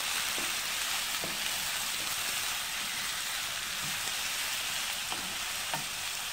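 Chopped ivy gourd and onion sautéing in sesame oil on high flame: a steady frying sizzle, with a few light knocks and scrapes of a wooden spatula stirring in a nonstick kadai.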